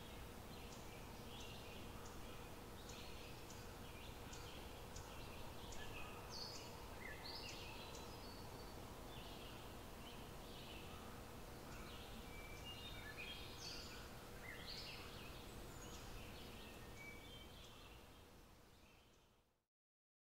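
Faint outdoor ambience with several birds chirping and calling in short, varied notes over a steady background hiss and a faint hum; it fades out near the end.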